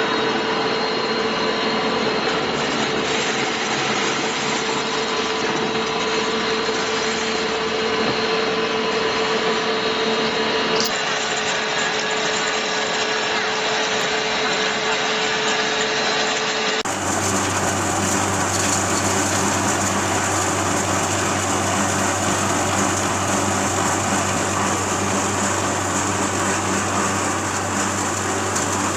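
Disk mill grinding machine running, a loud steady mechanical din with a steady hum through it. The sound changes abruptly twice, about 11 seconds in and again about 17 seconds in, the last part carrying a deeper hum.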